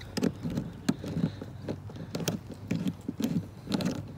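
Garden hose coupling being screwed onto an outdoor spigot: a string of irregular knocks, clicks and rubbing as the fitting is worked by hand.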